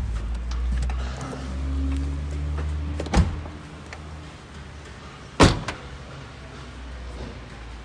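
Low, steady hum of a Honda Civic 1.6 engine idling, weakening after about three seconds, with two sharp car-door thumps, one about three seconds in and a louder one about five and a half seconds in.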